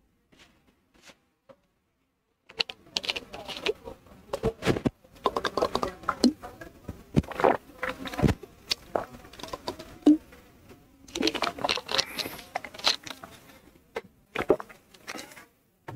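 Irregular rustling and clicking handling noise close to the microphone, starting about two and a half seconds in.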